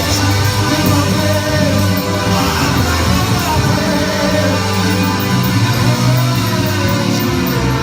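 Live gospel band music with singing over a steady heavy bass.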